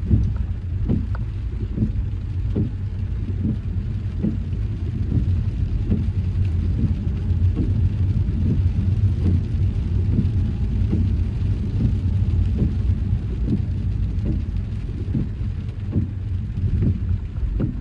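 Car driving on a wet road in rain: a steady low rumble of tyres and engine, with soft knocks repeating every half second or so.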